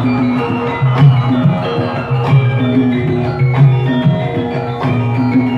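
Gamelan ensemble playing: struck metal keys and drum in a steady, repeating pattern, with a low note returning about once a second.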